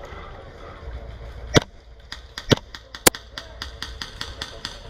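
Airsoft gunfire: three loud sharp shots about a second and a half, two and a half and three seconds in, with a rapid run of fainter shots, about six a second, through the second half.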